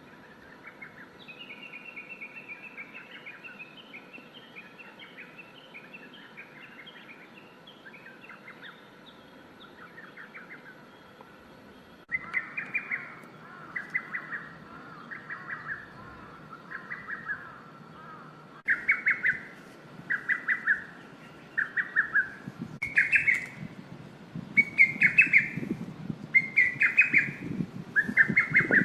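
Lesser cuckoo (hototogisu) calling over and over in short, rapid, staccato phrases. Several recordings are joined together: the calls are faint at first and much louder from about halfway on.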